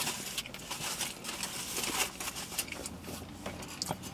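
Burrito wrapper crinkling and chewing while eating, a scatter of small irregular rustles and clicks.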